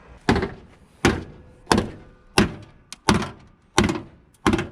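A run of heavy thunks, about seven blows in a steady rhythm roughly three every two seconds, each with a short ring after it.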